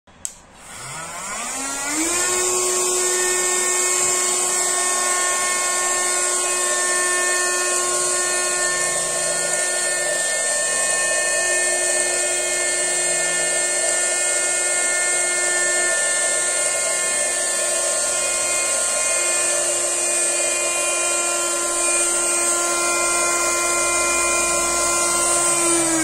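Small DC motor of a homemade battery-powered vacuum cleaner, switched on with a click and whining up to speed over about two seconds, then running steadily with its suction fan and a high whine.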